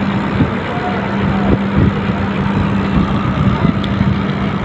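New bicycle rear hub freewheeling, its freehub pawls ticking so fast that they run together into a steady buzz.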